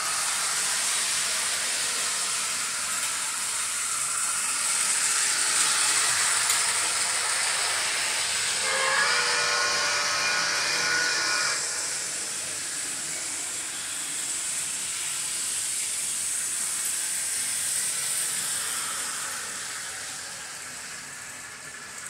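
Steam sound from the Tsunami TSU-2200 decoder in a Mantua 4-6-2 steam locomotive: a loud steam hiss comes on suddenly and eases off near the end. Around the middle the steam whistle blows once for about three seconds.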